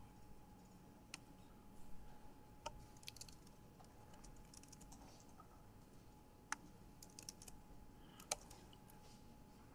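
Scattered keystrokes on a computer keyboard: single taps and short runs of typing with pauses between them, over a faint steady tone.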